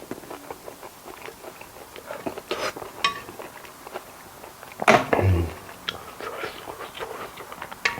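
A person chewing food close to the microphone, with scattered small crisp clicks and crackles. About five seconds in comes one louder, brief sound that falls in pitch.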